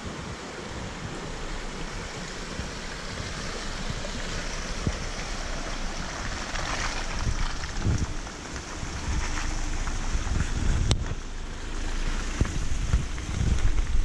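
Creek water rushing and wind buffeting the microphone, with a Jeep Wrangler Rubicon's V6 engine and tyres growing louder as it climbs out of the creek and drives past close by on gravel near the end.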